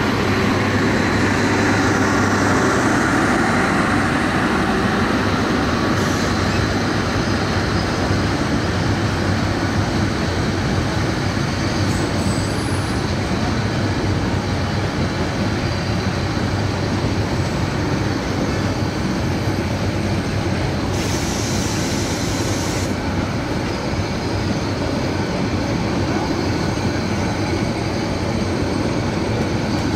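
Bangladesh Railway intercity passenger coaches rolling past at close range: a steady, loud rumble of wheels running on the rails that keeps on as coach after coach goes by.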